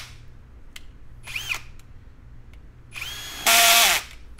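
Cordless drill with a 1/2-inch bit drilling through a plastic tailgate trim panel in short runs: a brief spin-up about a second in, then the motor whining and a loud half-second burst near the end, with the drill's clutch set to too low a torque.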